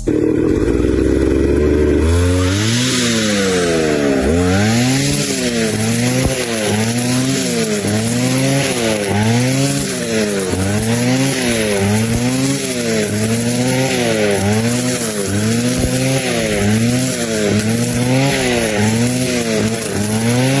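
An engine revved up and let fall over and over, its pitch rising and dropping about once a second.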